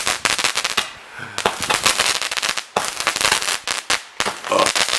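Consumer fireworks going off in fast, crackling volleys of pops, in runs of about a second with brief breaks between them.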